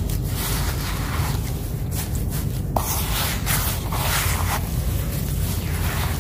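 Hands squeezing and kneading a wet, gritty sand-cement mix in a plastic tub: uneven gritty crunching and squishing, with a sharper crunch about halfway through.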